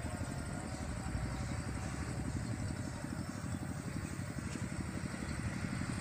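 A small engine idling steadily, its low, fast, even pulsing running without change.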